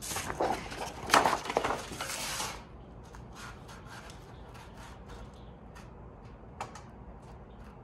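A large sheet of white template paper rustling as it is lifted and slid across a steel welding table, loudest for the first two and a half seconds. A few faint ticks follow, with one sharper click about six and a half seconds in.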